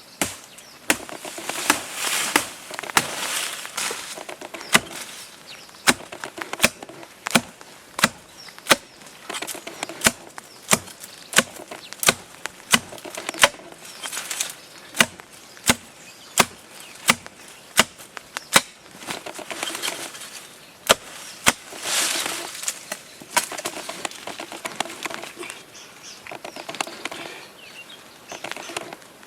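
A steady series of sharp strikes, about three every two seconds, with rustling before and after the run.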